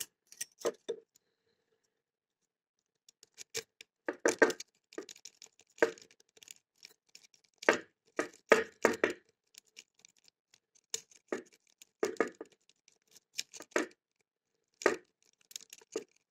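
Jiggler key being worked in a single-sided wafer lock: irregular small metallic clicks and scrapes in short clusters, starting a few seconds in, without the lock opening.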